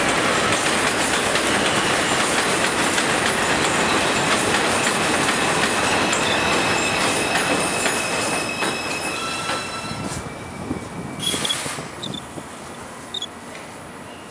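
A New York City subway 5 train of R142 cars pulls into an elevated station, its wheels rumbling on the rails with a high steady squeal. It fades from about eight seconds in as the train slows, and there is a brief hiss near the end.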